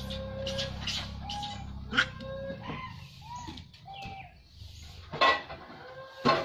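Macaques giving short coo calls: a string of single clear notes, each under half a second, some held level and some rising and falling in pitch. Several sharp clacks cut in, the loudest two near the end.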